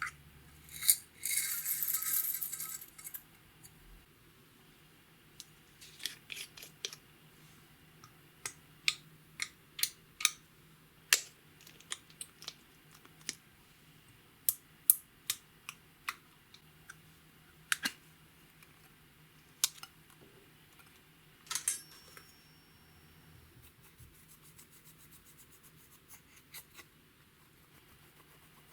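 Makeup containers and tools being handled for slime mixing: scattered sharp clicks and taps, with a brief crunchy rustling burst about a second in.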